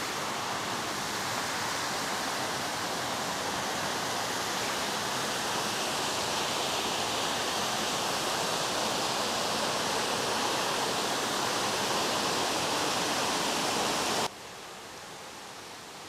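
Steady rush of water from a small cascading waterfall and a shallow rocky stream. About 14 seconds in it drops suddenly to a much quieter hiss.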